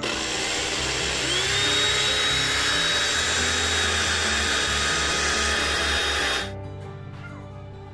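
Small electric blender's mill cup running on its pulse button: the motor whine rises as it spins up, then holds steady while it grinds the contents, and cuts off suddenly about six and a half seconds in.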